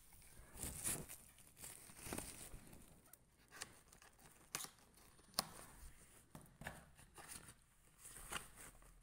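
Faint rustling and crinkling of a paper insert and cardboard box being handled and unfolded, with a few light taps and ticks scattered through.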